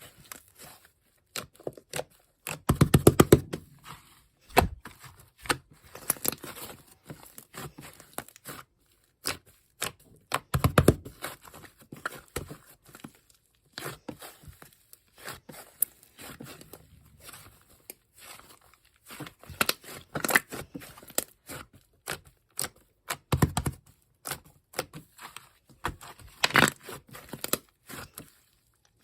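Clay slime worked by hand: it is stretched, pressed and folded, with bursts of crackling, popping clicks and soft tearing sounds. The strongest bursts come about three, eleven, twenty-three and twenty-six seconds in.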